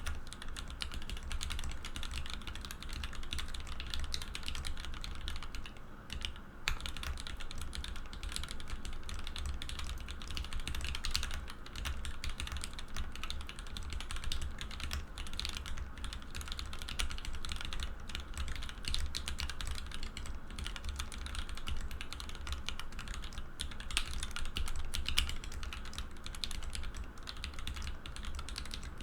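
Continuous fast typing on a mechanical keyboard with H1 tactile switches lubed with Tribosys 3204, GMK doubleshot ABS keycaps on an acrylic plate: a steady stream of muted keystroke clacks with a brief pause about six seconds in.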